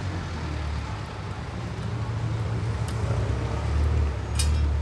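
Steady low rumble of nearby motor traffic, with a sharp click near the end.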